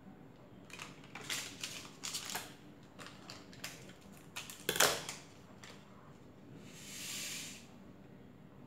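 Light clicks and clatter of kitchen utensils and containers being handled while making mango pudding, with one louder knock about five seconds in and a brief soft rush near the end.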